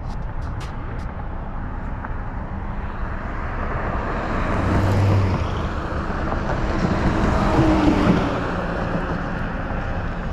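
Street traffic: a motor vehicle's rushing noise swelling as it passes, loudest about halfway through and again near the end.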